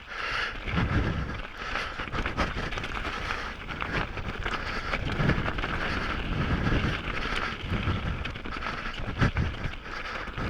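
Canyon Sender downhill mountain bike rolling fast over a rough trail: steady tyre and wind noise with constant small clicks and rattles from the bike. The rider's heavy breathing sits right on the microphone, coming through as irregular low puffs every second or two.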